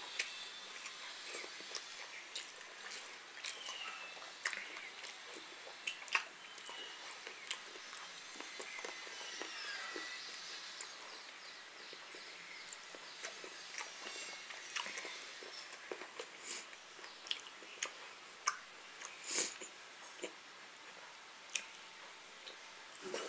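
A person chewing and biting food close to the microphone, with many small, sharp mouth clicks.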